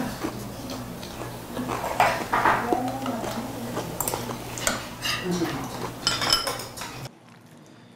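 Tableware clinking as people eat at a table: utensils tapping and scraping against dishes in short, irregular knocks over a low steady hum. About seven seconds in the sound drops away abruptly to a faint background.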